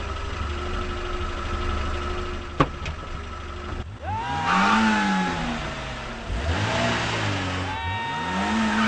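Car engine idling, then from about four seconds in revved hard three times, its pitch climbing and dropping each time, with a rushing hiss as the car takes off.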